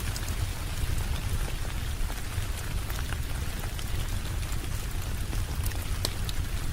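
Steady rain mixed with a crackling wood fire: an even hiss of rain over a deep low rumble, with scattered sharp crackles.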